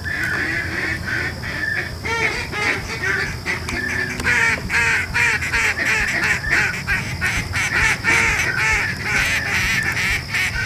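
Ducks calling, a dense run of many short, overlapping quacks and chatter.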